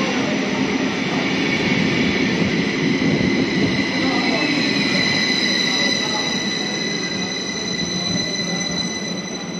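Double-deck passenger train rolling along the platform: a steady rumble of wheels and running gear, with a high, steady ringing tone over it. It eases off slightly near the end.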